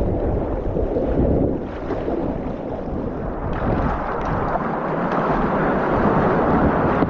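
Wind buffeting the microphone over water rushing and splashing along a sea kayak's hull as it is paddled and surfed on small waves; the hiss of the water grows louder about halfway through.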